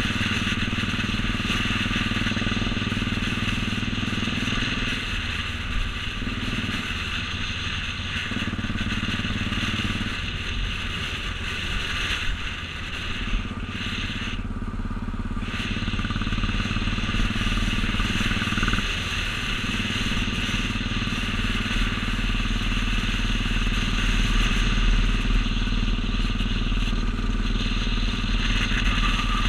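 Royal Enfield Bullet 350 single-cylinder engine running as the motorcycle rides along at steady speed. The engine note drops and picks up again several times.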